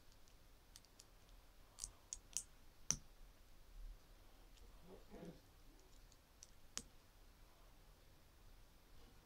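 Plastic LEGO bricks being handled and pressed together: a few faint, irregular clicks, the sharpest about three seconds in.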